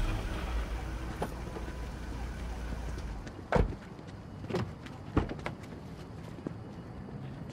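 A car's engine running low as the car pulls up, cutting off about three seconds in. Several sharp clunks of car doors opening and shutting follow.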